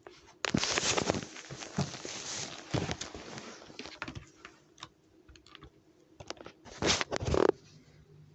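Irregular clicks and rustling of things being handled close by, densest for the first few seconds, with a short loud burst near the seven-second mark, over a faint steady hum.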